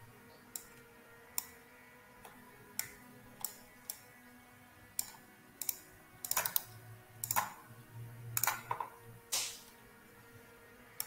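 Computer mouse and keyboard clicks at irregular intervals, about a dozen sharp single clicks, coming closer together in the second half, over a faint steady background tone.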